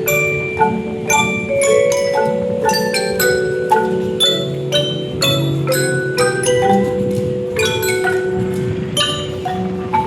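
A mallet percussion ensemble playing: struck notes with a ringing tone, about two to three a second, over held lower tones.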